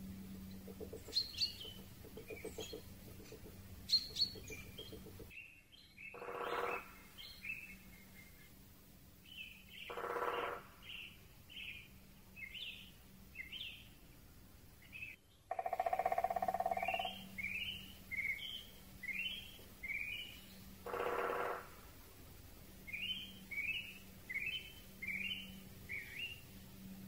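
Birdsong: a small bird's short chirps repeated in quick runs, with four longer, lower croaks of a common raven.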